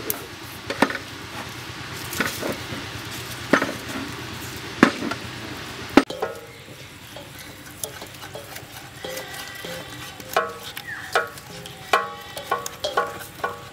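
Hands and a knife working raw chicken in steel bowls: wet squelching and handling noise with several sharp clicks and taps in the first half, then quieter handling with a few short pitched sounds near the end.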